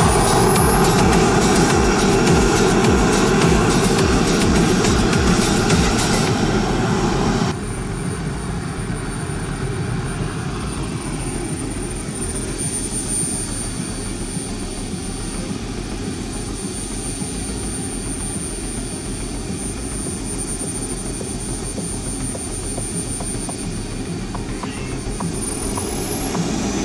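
RC F-4 Phantom model jet's turbine engine running with a high steady whine. Its pitch rises just after the start and again near the end as the turbine spools up. The level drops abruptly about seven seconds in.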